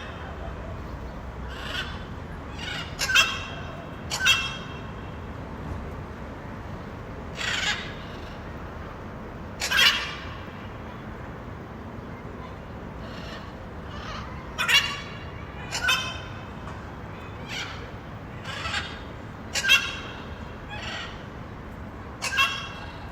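Blue-and-yellow macaw giving a series of short, harsh screeching calls, one every second or two with irregular gaps, over a steady background hiss.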